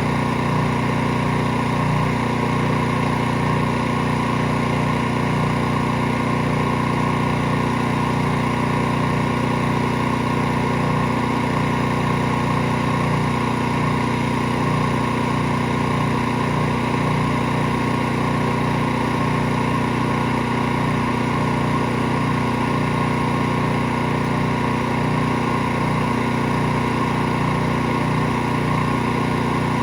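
Small-engine pressure washer running steadily at a constant pitch.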